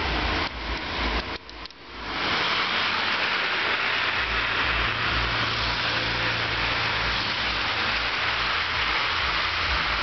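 Car driving on a snow-covered road: steady tyre hiss and low engine rumble, with a brief dip in the noise about one and a half seconds in.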